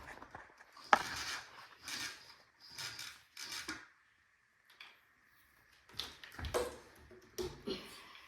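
Handling noise from a canister vacuum cleaner being set up, not yet running: a sharp click about a second in, then short bursts of knocking and scraping with a brief pause in the middle.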